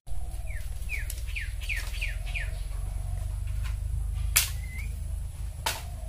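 A bird gives a quick run of six falling chirps, about two a second. Then come two sharp cracks from the dry sticks being broken and handled, over a low steady rumble.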